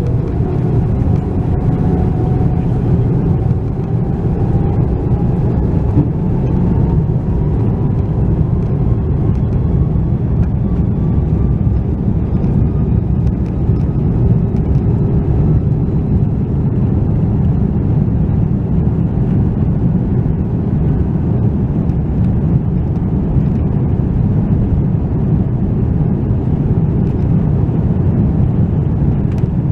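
Airbus A330-300 jet engines at takeoff power, heard from inside the cabin: a loud, steady low rumble, with faint whining tones that rise slowly in pitch over the first half.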